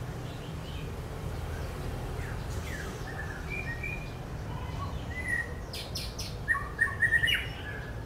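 Small birds chirping sporadically: short, high chirps scattered throughout, with a quicker, louder run of chirps about six to seven seconds in, over a steady low background rumble.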